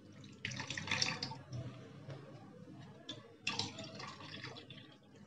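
Soaking water poured off soaked moong dal and dried red chillies, trickling and splashing into a steel tumbler in two spells, about half a second in and again about three and a half seconds in.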